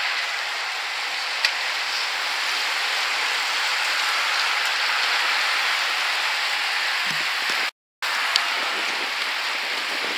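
A large bunch of racing bicycles passing close by: a steady hiss and whirr of tyres on asphalt and spinning drivetrains. A short cut to silence breaks it about three-quarters of the way through.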